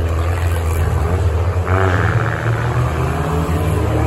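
Several demolition derby cars' engines running and revving together, with the revs rising and falling about two seconds in.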